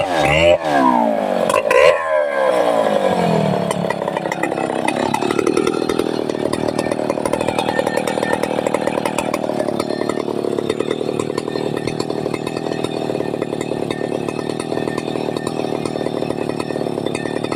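Chainsaw revving up and down in quick swoops. From about four seconds in it runs steadily at high speed, as when cutting a long cut into the trunk of a trembesi (rain tree).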